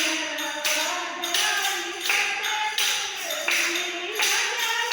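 Devotional bhajan sung to a steady percussion beat of claps or jingling strikes, about two a second.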